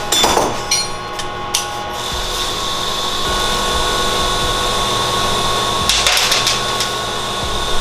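A few sharp clicks of metal tools, then a small motor running with a steady high whine, with a brief noisy burst near the end.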